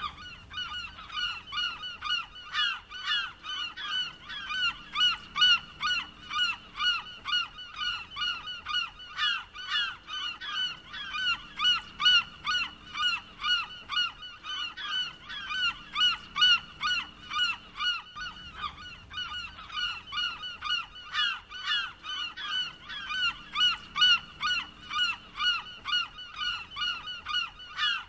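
A flock of gulls calling, with many short, harsh calls overlapping several times a second without a break.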